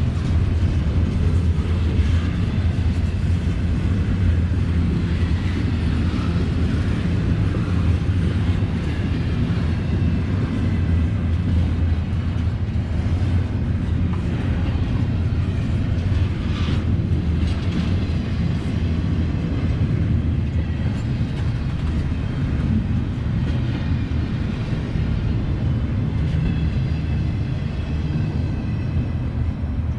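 Train rolling by with a continuous, steady low rumble, and one sharper clank about halfway through.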